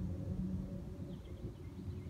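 Outdoor lake ambience: a steady low hum and rumble, with a few faint, quick high-pitched bird chirps about a second in.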